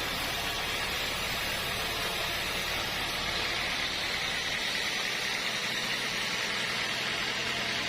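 Sawmill saw running steadily: an even hissing machine noise with no breaks or strikes.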